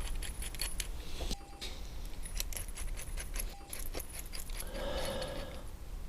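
Small metal fittings (a bolt, spacer and washers) clinking and jingling irregularly as they are handled and fitted to an exhaust bracket.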